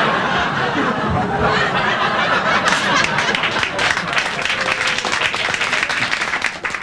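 Audience laughing at a punchline, then breaking into applause about two and a half seconds in; the clapping thins out near the end.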